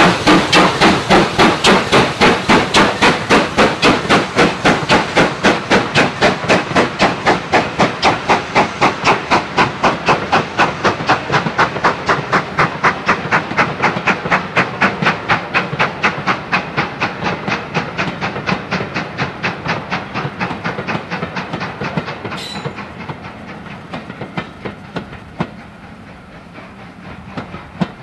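GWR Modified Hall steam locomotive No. 6989 'Wightwick Hall' working a train past, its exhaust beats coming in a fast, even rhythm that fades gradually as the coaches pass and the train draws away. The coach wheels rumble, with a few clicks over rail joints near the end.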